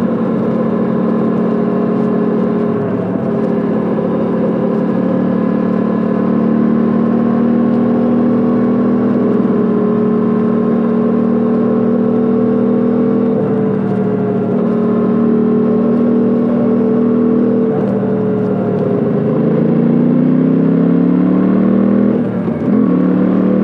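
Suzuki V-Strom 800DE's 776 cc parallel-twin engine heard through its exhaust, cruising at a steady speed on the open road. Near the end the revs drop and then climb again.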